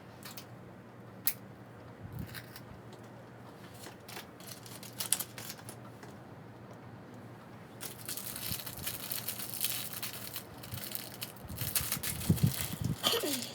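Close handling noise: scattered small clicks and taps, then a dense stretch of crinkling from about eight seconds in until near the end.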